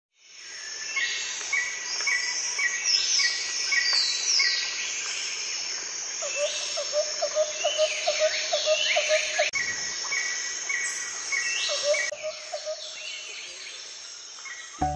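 Several birds singing and calling: repeated high chirps and short slurred whistles, with a run of quick lower notes at about four a second in the middle and again briefly about three-quarters through, over a steady high hiss.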